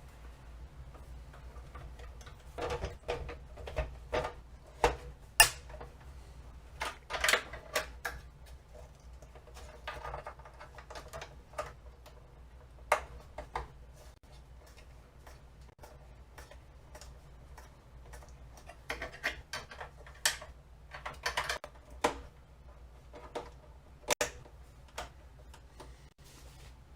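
Irregular sharp clicks and knocks of hardware being handled, in clusters, over a low steady hum.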